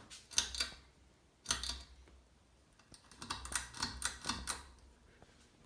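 Ceiling fan pull-chain switch being pulled in three bursts, the metal bead chain rattling and the switch clicking as it steps through the speeds to low.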